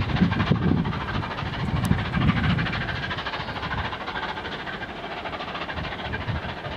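A departing train with a diesel locomotive on its rear, running away along the track. Its low rumble is strongest for the first couple of seconds and then fades as the train draws off.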